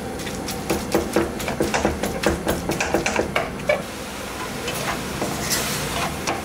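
Wooden spatula scraping and tapping against a metal kadai as minced mutton is stirred, a quick run of several strokes a second, with a hiss of the meat sizzling near the end as its water cooks off.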